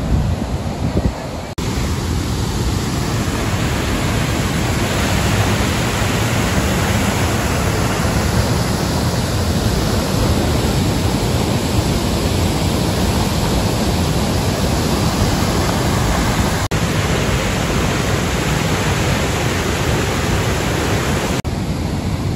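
Loud, steady rush of falling water from the Phe Phe Waterfalls' first tier, heard up close: one dense, even noise with a brief dip about a second and a half in.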